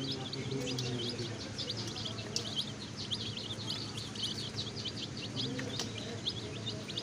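A group of baby chicks peeping continuously: many short, high-pitched cheeps overlapping, several each second.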